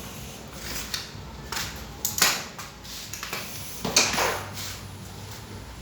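Metal hand tools clattering and clinking, a few separate knocks and scrapes about a second or two apart, with the two loudest about two and four seconds in.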